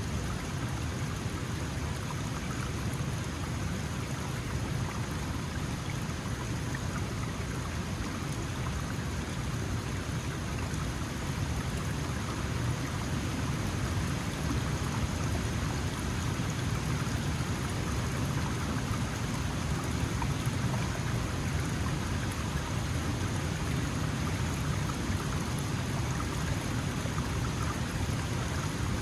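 Small mountain stream flowing and splashing steadily over stones.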